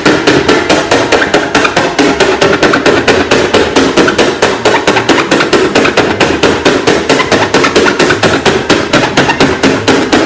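Rapid, evenly spaced knocking, about six strokes a second, that starts suddenly and keeps a steady beat.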